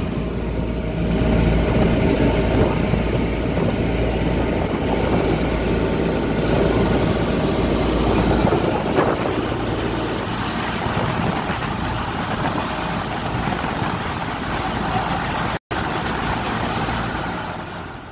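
A small wooden passenger boat under way at sea: its engine runs steadily while water rushes and splashes along the hull. The sound drops out for an instant near the end and then fades.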